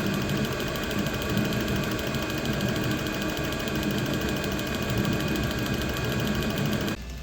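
Diesel heater running steadily on its secondary fuel port, with its fan and burner making an even whir that has a fast, fine rhythm. The flame is holding with the venturi removed. The sound cuts off suddenly just before the end.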